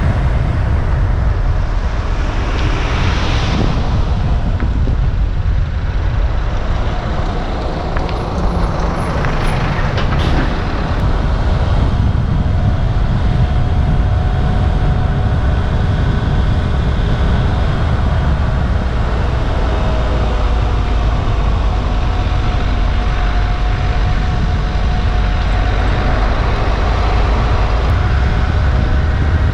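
A vehicle on the move: a steady, loud low rumble of engine and road noise.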